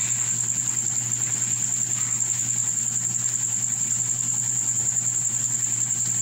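Pancit canton broth simmering in a pan on a stove, giving a soft even hiss, over a steady high-pitched whine and a low hum.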